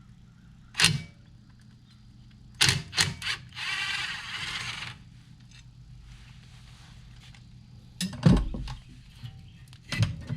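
Metal clicks and clanks of hand tools and parts at a truck's front brake as the brake rotor is taken off. There is a rasping stretch of about a second and a half a few seconds in, and a heavy metallic thump about 8 seconds in, the loudest sound.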